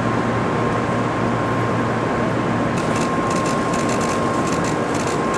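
Steady running noise of a Shinkansen train with a constant high-pitched tone, and light clicks and rattles from about three seconds in.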